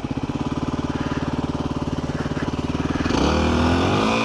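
Yamaha WR250R's single-cylinder four-stroke engine running steadily at low revs, then, about three seconds in, getting louder as the revs rise and fall with the throttle.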